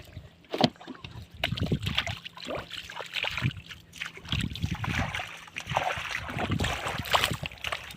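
Irregular splashing and sloshing of shallow water, from hands and feet working through a flooded rice field.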